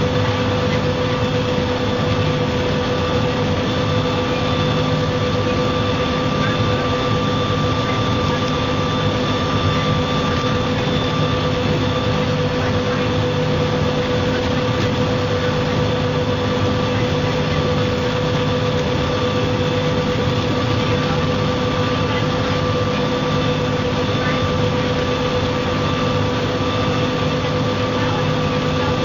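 MCW Metrobus double-decker bus with its Cummins diesel engine running at a steady pitch for the whole stretch. A steady whine sits over the engine drone and a constant road-and-mechanical noise, and the pitch does not rise or fall.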